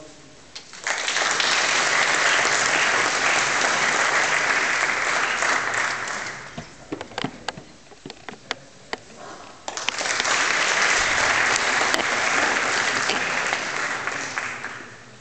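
Audience applauding in two rounds, starting about a second in and again about ten seconds in, with a few scattered claps between, as each graduate receives a diploma.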